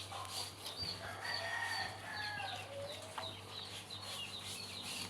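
Chickens in the background: repeated short high chirps and clucks, with a longer drawn-out call from about one to three seconds in.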